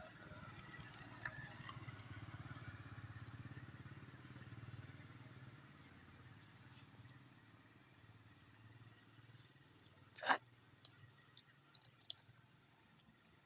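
Steady high-pitched insect chirring, with a low engine hum that swells and fades over the first five seconds or so. A sharp knock comes about ten seconds in, followed by a few smaller clicks.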